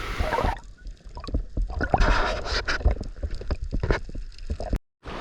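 Water splashing and sloshing around a swimmer moving through the sea towards shore, with irregular knocks and surges; the sound turns muffled about half a second in.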